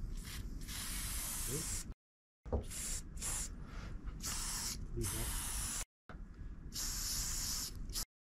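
Aerosol spray-paint can hissing in repeated bursts, some short and some over a second long, as a line of paint is laid on. The sound cuts out completely twice.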